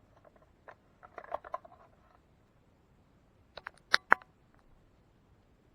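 Plastic vacuum cleaner attachment being handled: light taps and rattles about a second in, then a few sharp plastic clicks near the four-second mark, the last two the loudest.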